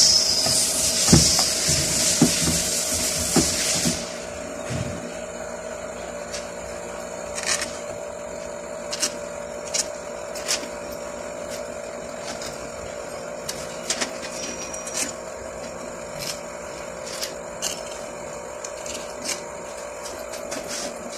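Light metal clicks and taps every second or two as parts of an automatic-transmission valve body are fitted together by hand and its bolts are picked up and set in place, over a steady low hum. For the first four seconds a loud hiss and a few knocks sound, and the hiss then cuts off suddenly.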